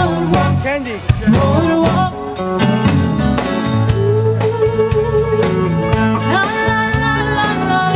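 Live band playing amplified: bass and drums under a lead line that slides between notes and glides up into a long held high note near the end.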